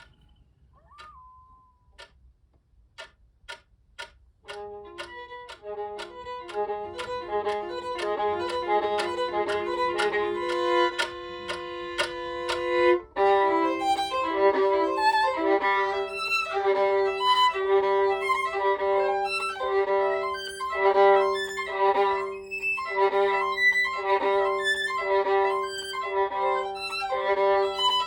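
Solo violin playing live: a few short, sharp notes at first, then sustained bowed notes over a low held drone. About halfway in it turns louder, with a quick rhythmic figure over a held double stop.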